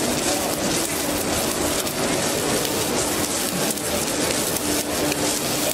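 Submerged arc welding: a steady crackling hiss as the welding head runs its bead under a bed of granular flux, with a low steady hum that comes and goes.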